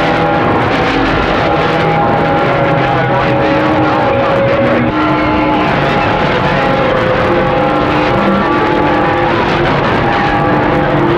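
Transceiver receiving the crowded 27.025 MHz CB channel: a steady hiss of static laced with several steady whistles from overlapping carriers, each holding for a second or a few before dropping out as others come in.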